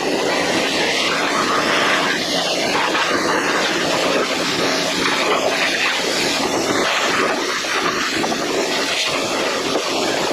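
Pressure washer blasting mud off a Jeep JK's steel frame: a loud, steady hiss of high-pressure spray whose texture shifts as the jet moves over the frame.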